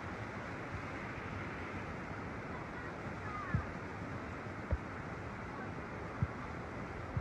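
Fast-flowing floodwater surging along a street: a steady rush of water, with three dull low thumps in the second half.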